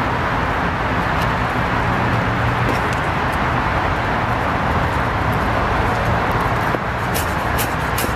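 Steady road traffic noise with a low hum. Near the end comes a quick run of crisp knife cuts through an apple on a wooden cutting board.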